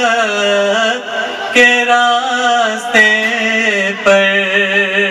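A man's voice chanting a naat without instruments, holding long melodic notes and drawing out a line of the verse. New phrases start about every second and a half, and the last one fades away.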